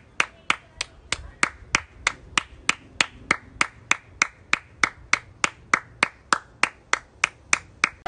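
One person clapping her hands in a steady, even rhythm, about three claps a second.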